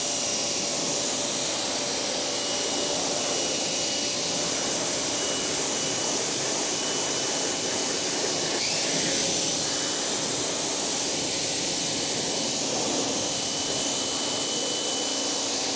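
Pressure washer spraying a car wheel through a bent wand: a steady hiss of high-pressure water with a high whine running under it. A little past halfway the whine dips briefly and climbs back.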